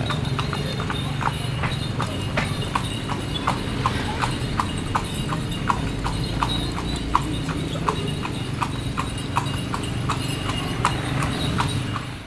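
Horse's hooves clip-clopping on a paved road as a delman (horse-drawn carriage) goes along, an even beat of about three strikes a second over a steady low rumble.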